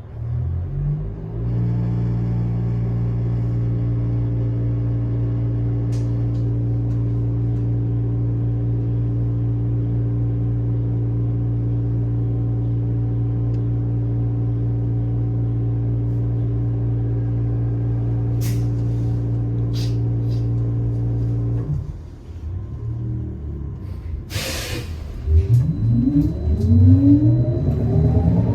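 New Flyer XT60 trolleybus heard from inside. A pitched electrical hum rises briefly, then holds one steady pitch for about twenty seconds and cuts off suddenly. A few seconds later comes a short hiss of air, then the whine of the traction motor climbing in pitch as the bus pulls away.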